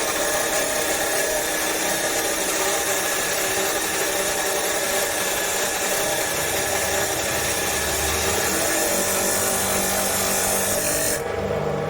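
Metal-cutting chop saw running and cutting, a loud steady grinding hiss. Near the end the hiss stops suddenly, leaving the lower hum of the motor.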